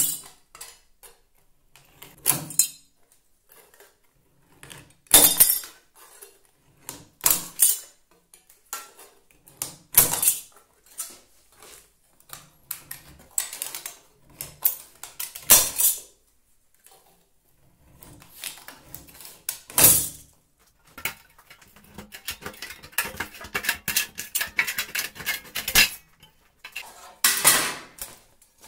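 Homemade lever shear made from an old saw blade cutting thin sheet metal: sharp metallic snips and clinks a few seconds apart, with cut strips clattering onto the bench. About three quarters of the way through comes a longer run of dense crackling as a long cut is made.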